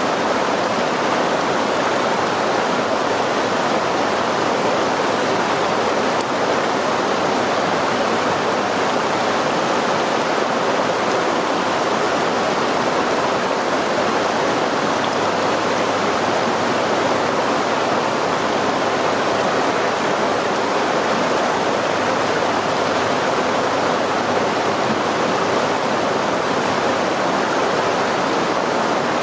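Stream water rushing and splashing over rocks, a steady, unbroken flow.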